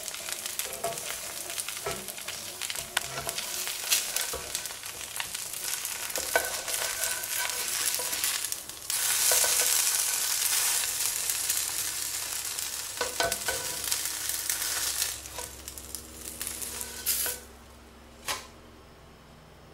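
Fenugreek dosa sizzling in oil on a hot nonstick skillet, with sharp scrapes and taps of a spatula as it is lifted off. The sizzle gets louder about nine seconds in and dies away near the end, followed by one more tap.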